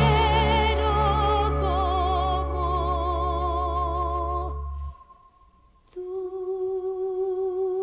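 A woman singing a long held note with wide vibrato over a sustained musical accompaniment with a steady bass. The sound falls almost silent for about a second, about five seconds in, and then she holds another long note with vibrato.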